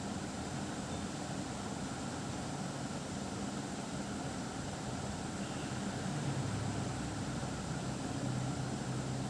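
Steady low hum with hiss, growing slightly louder about six seconds in.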